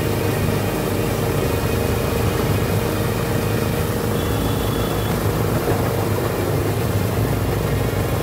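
Wulai tourist trolley running along its narrow-gauge track: a steady low rumble with a held hum from the moving car.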